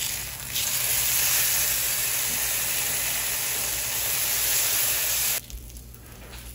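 Strips of goose bacon sizzling in hot oil in a frying pan, flash-seared over medium-high heat; a steady hiss that cuts off suddenly about five seconds in.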